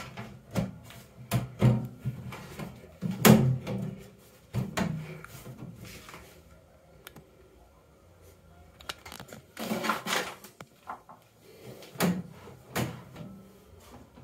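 Knocks and thuds from handling a microwave oven's sheet-metal outer cover as it is seated back on: a quick run of knocks, the loudest about three seconds in, a brief rustling scrape about ten seconds in, and two more knocks near the end.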